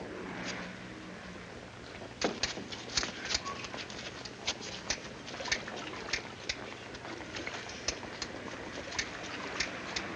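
Surface noise of an old film soundtrack: a steady hiss and low hum, with irregular sharp crackling clicks, two or three a second, from about two seconds in.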